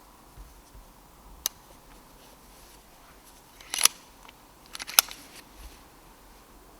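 Sharp mechanical clicks and snaps from a Brocock Ranger XR .22 PCP air rifle being shot and cycled while ratting: a lone click about one and a half seconds in, then two quick clusters of clicks, the second, about five seconds in, the loudest.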